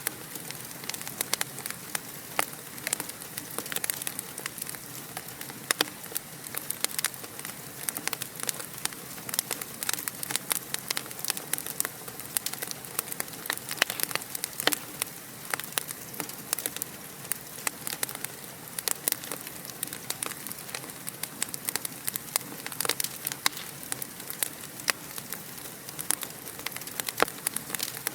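Fire in a fireplace crackling steadily: many quick, sharp pops and snaps over a soft hiss.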